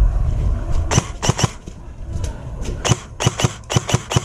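Airsoft gunfire: about ten sharp snaps, irregularly spaced, some single and some in quick pairs, over a low rumble at the start.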